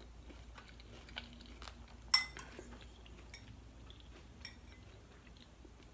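A single metallic clink of cutlery against a dish about two seconds in, with faint small clicks of eating around it.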